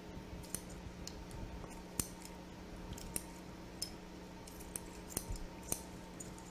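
Kitchen scissors snipping through the butcher's netting on a roast leg of lamb: a string of short, sharp snips and clicks at irregular intervals, over a faint steady hum.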